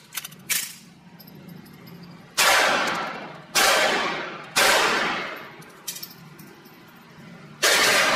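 Semi-automatic pistol firing .22 LR: three shots about a second apart a couple of seconds in, then a fourth near the end, each with a long echoing tail in an enclosed room. A few light clicks of gun handling come first.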